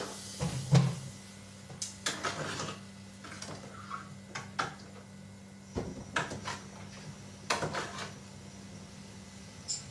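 Kitchen clatter of cookware and utensils being handled while noodles are cooked: scattered short knocks and clinks, about a dozen, over a faint steady low hum.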